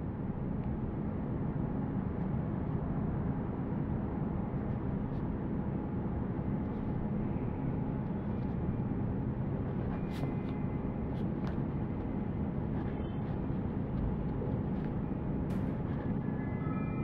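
A steady low rumble, with a few faint ticks in the second half and faint high tones coming in near the end.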